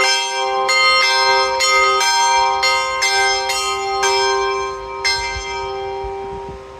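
Swing bells of an outdoor mechanical clock tower ringing the hour, struck about once a second and then left to ring out after about five seconds, with only some of its three bells sounding because the top bell is not working.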